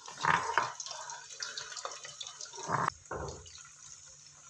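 Cornflour-coated chicken cubes deep-frying in a pan of hot oil, bubbling and sizzling, with louder spurts near the start and about three seconds in.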